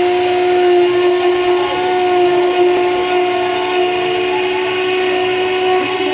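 CNC router's newly fitted spindle motor running at a steady high speed, a constant loud whine with a high overtone.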